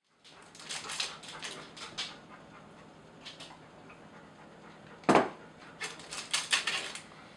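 A dog panting, with one short, loud sound about five seconds in.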